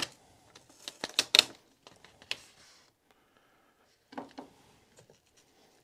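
Hands handling strips of brown tape on a golf shaft clamped in a vise: a few sharp clicks and taps about a second in, one more a little later, and a short rustle of tape about four seconds in.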